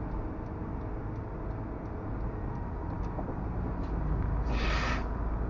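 Car interior road noise, recorded by a dashcam on a highway: a steady low rumble of tyres and engine. About four and a half seconds in, a brief rush of hiss lasts about half a second.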